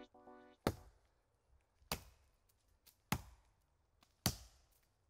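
Blade chopping into a tree trunk: four sharp blows at an even pace, about one a second. A musical chord fades out just before the first blow.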